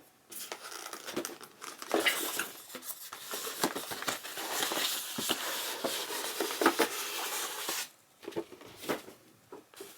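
Packaging crinkling and rustling, with many small clicks and knocks, as items are unpacked from a box; it quietens about eight seconds in.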